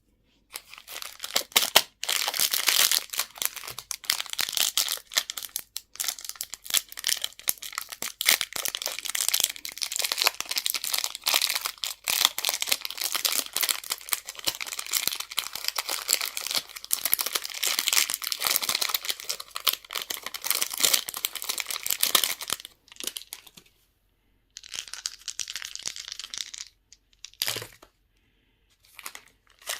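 Crinkly candy wrappers being handled and torn open: a long dense run of crackling, then shorter bursts with pauses over the last several seconds.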